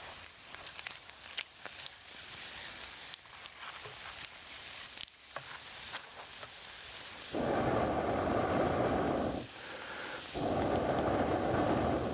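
Food sizzling on a hot stone over a fire, with small crackles. About seven seconds in come two loud rushing bursts of about two seconds each, one after the other.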